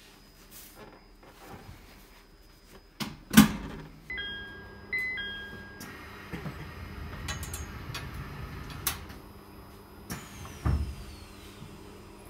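Cabin sounds of a stopped E721 commuter train: a sharp clunk a little over three seconds in as a plastic seat-back tray table is folded shut, followed by a few short electronic tones. From about six seconds on there is a low rumble of train equipment, a dull thump near the end, and a faint falling whine.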